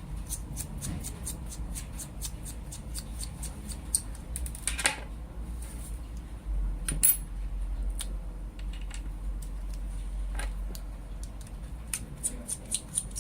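Small clicks, taps and scrapes of a metal lightsaber hilt and its parts being handled and taken apart, with a few louder knocks.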